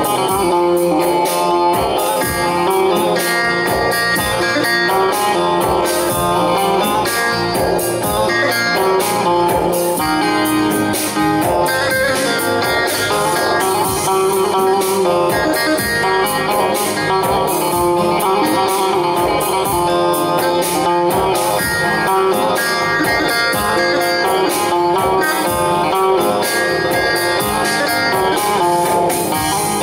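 Electric bağlama (long-necked Turkish saz) playing a Teke-region folk tune with a steady beat, backed by an electronic keyboard.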